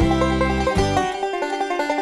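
Background music: an upbeat plucked-string instrumental, with a quick run of short notes over a few held bass notes.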